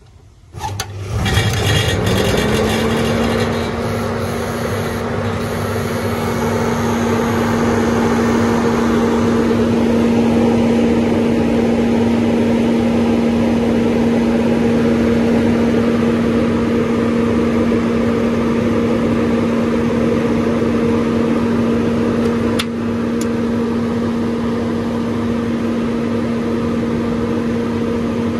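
The blower fan of an old flat-bed grain dryer switches on about half a second in and spins up over about two seconds to a steady hum, over a steady rush of air, while the dryer's burner is lit. A single click near the end brings the sound down slightly.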